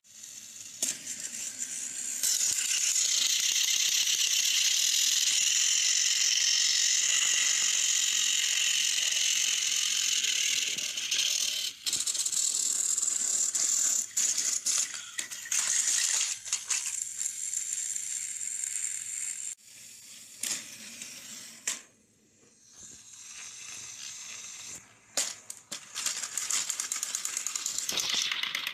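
Motorized plastic toy trains running along plastic track, a loud steady rattling whirr of small motors and wheels. After about ten seconds it turns uneven, with clicks and short gaps, drops away for a few seconds after the middle, then comes back loud near the end.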